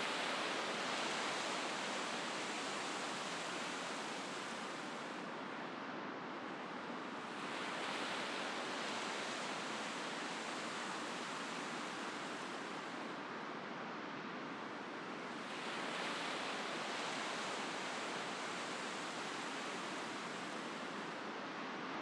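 Ocean surf breaking on a sand beach: a continuous wash of waves that swells four times, about every seven or eight seconds, as each wave breaks and runs up the shore.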